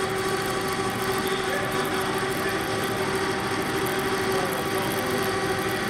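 Metal lathe running steadily, its tool bit taking a light skimming cut of about a tenth of a millimetre on the burnt copper commutator of a 3 kW DC series motor's armature to true it up. A constant tone sits over continuous cutting and machine noise.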